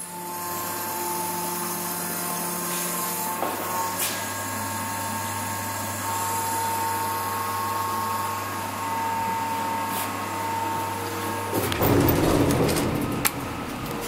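Steady electrical hum with a thin whining tone from the elevator's equipment. About twelve seconds in it changes to a louder, rougher rumble with a few clicks.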